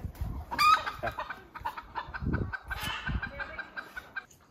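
Domestic chickens clucking, with one loud, sharp squawk about a second in, followed by a run of short, evenly spaced clucks. A few low thumps come between two and three seconds in.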